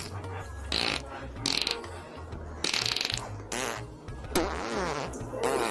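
Comic fart sound effects: several separate rasping, rattling blasts, standing for lactose-intolerance gas after drinking milk.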